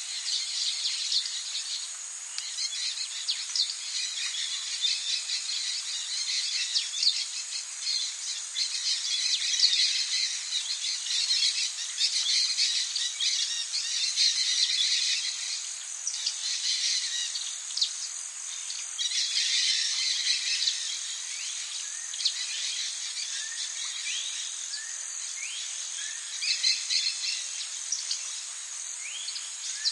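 Tropical rainforest ambience: a dense, steady chorus of insects, with bird calls, including a few short rising chirps near the end.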